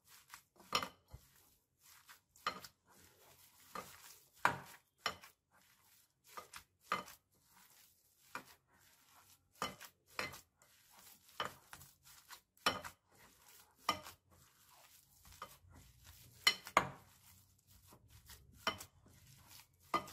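Hand mixing a mash of boiled potato, grated cheese and chopped vegetables in a glass bowl, with short, irregular knocks and clinks against the glass about once a second.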